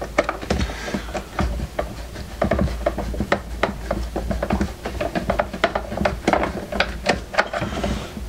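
Irregular clicks, taps and scraping of hands and a screwdriver on the plastic case of a Lenoxx Sound BP-103 boombox as it is handled and taken apart.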